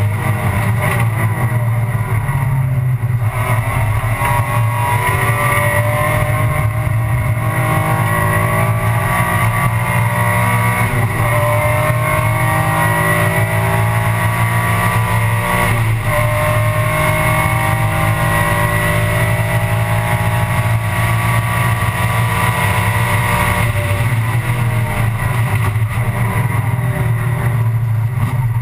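In-car sound of an Alfa Romeo 156 GTA race car's 3.2-litre V6 engine at full throttle, its pitch rising in long sweeps through the gears with upshifts about 3, 12 and 16 seconds in, then holding steadier before dropping about four seconds from the end.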